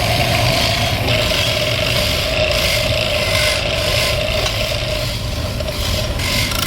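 A power tool running steadily while working wood: a motor whine that sags slightly in pitch partway through, under a continuous rasping, abrasive hiss.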